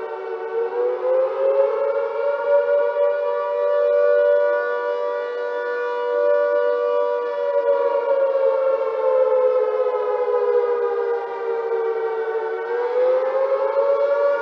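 Civil defense air-raid siren wailing in two close tones: the pitch rises about a second in, holds, sinks slowly for several seconds, then rises again near the end.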